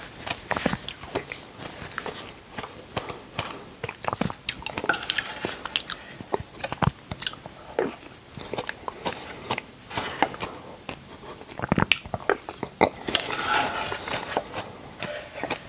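Close-miked eating sounds: dragon fruit being bitten and chewed, with many small irregular clicks and crunches.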